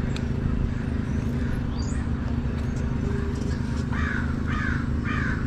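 A Suzuki GSX-R750's inline-four engine running steadily as a low rumble. About four seconds in, a crow caws three times in quick succession.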